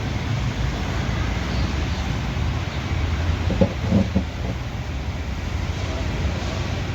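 Steady low rumble of background traffic, with a few short squeaky sounds about three and a half to four seconds in.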